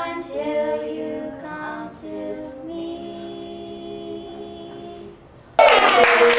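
Three girls singing a cappella together, finishing on a long held note. Near the end, loud clapping and cheering break out suddenly.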